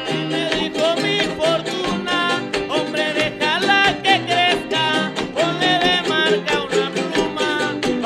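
Live son jarocho music: jaranas strummed in a fast, even rhythm under a bending melodic line, with singing.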